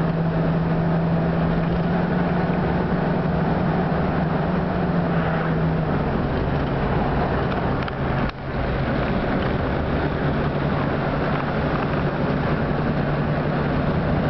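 Small-block 350 V8 in a 1954 Corvette roadster running steadily while the car cruises down a street, heard from the open cockpit with road noise. Its engine note steps down to a lower pitch about six seconds in, and the sound dips briefly about eight seconds in.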